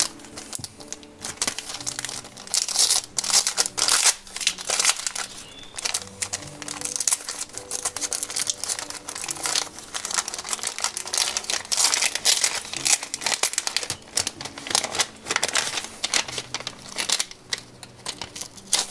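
Crinkling and rustling of a thin paper sleeve as hands handle it and open it to take out a sticker print, in irregular bursts throughout. Soft background music plays underneath.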